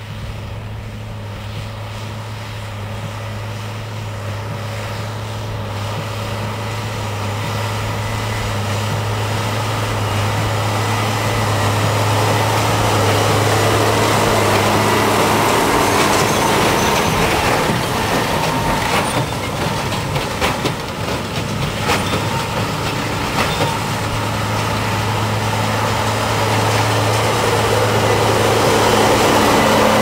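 New Holland T7060 tractor's six-cylinder diesel running steadily under load while pulling a New Holland D1210 large square baler, growing louder over the first dozen seconds as the machine comes close. The baler's mechanism adds a mechanical clatter with scattered knocks in the second half.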